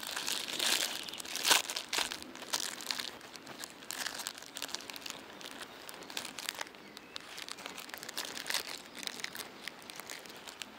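Irregular rustling and crinkling close to the microphone, loudest in the first two seconds and then lighter.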